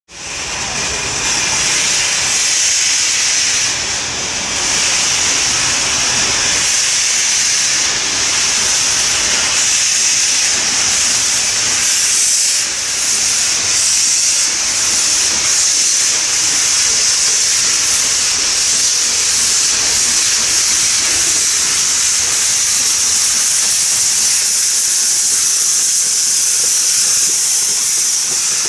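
ČSD 475.1 steam locomotive blowing off steam from its open cylinder drain cocks as it starts away: a loud, steady hiss throughout.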